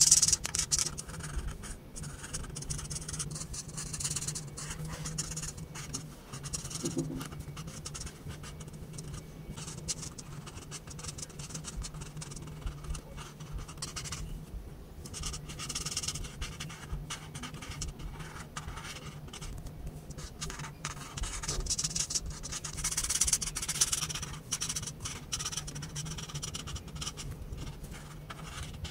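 Felt-tip marker scratching across paper in many short back-and-forth colouring strokes, now louder, now softer.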